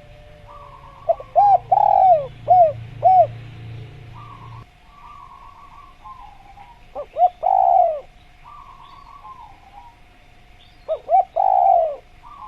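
Spotted dove (tekukur) cooing: three phrases, each a few short coos followed by a longer coo that falls in pitch. Fainter chirps of smaller birds fill the gaps.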